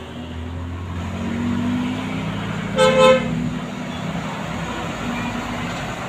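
A coach's diesel engine rumbling as it draws near, growing louder, with a short double toot of a horn at one steady pitch about three seconds in.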